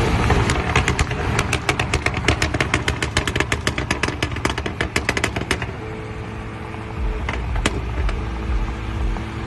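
Alfa Romeo Giulia Quadrifoglio's 2.9-litre twin-turbo V6 exhaust crackling and popping in a rapid, irregular string of sharp cracks for about five seconds over its low rumble. It then settles to a steady low running sound with only a few single pops.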